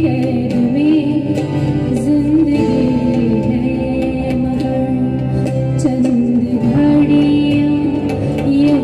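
Woman singing long, held notes with wavering ornaments over live accompaniment from tabla, guitar and keyboard.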